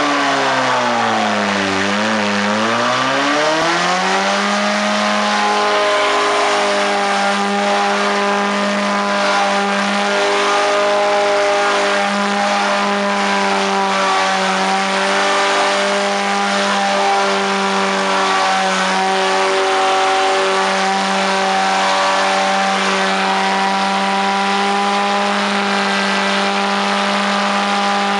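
Honda Accord's engine held at high revs in a front-wheel burnout, the front tyres spinning against the pavement. The revs drop about two seconds in, climb back, and then hold steady for the rest.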